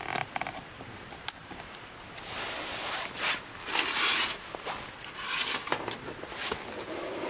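Rustling and handling of a paper tray and packaging on a metal camp table, in several scratchy bursts from about two seconds in, with small clicks and taps between them.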